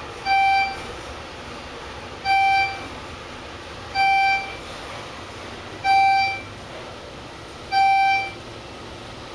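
Schindler 400A traction elevator's electronic beep sounding five times, short and identical, about two seconds apart, over the steady low hum of the moving car.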